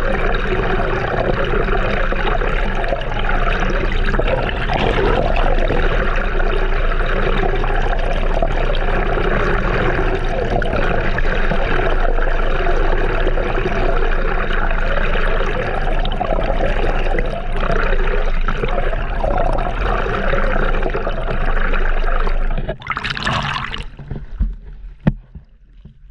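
Seawater rushing and gurgling steadily and loudly. About 23 seconds in the rush cuts off abruptly, followed by a short whoosh and then quieter scattered splashes and clicks.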